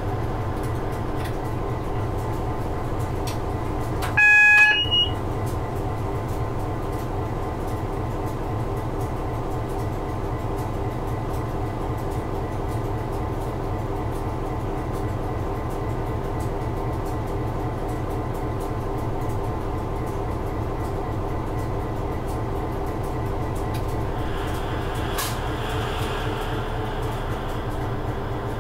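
Diesel locomotive heard from the cab, its engine running steadily under way on the main line. About four seconds in, a brief, loud two-note warning tone sounds and steps up in pitch before stopping.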